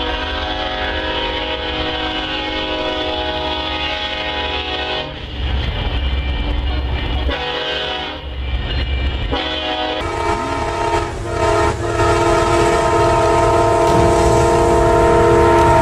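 A Union Pacific diesel locomotive's air horn sounds a long chord blast and then two shorter ones, with the heavy low rumble of the locomotives passing close by. About ten seconds in, a second train's horn takes over with a long, steady blast that gets louder as the train approaches.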